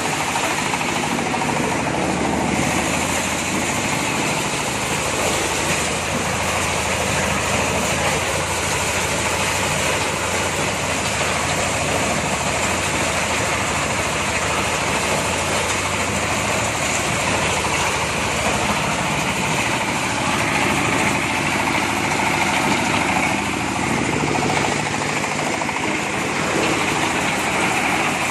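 Engine-driven corn sheller machine running steadily.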